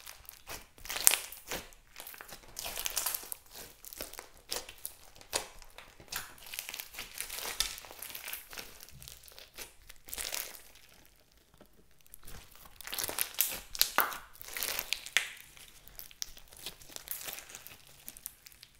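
Hands kneading and stretching clear slime packed with foam beads: sticky crackling, popping and crunching in irregular bursts, with a brief pause a little past the middle.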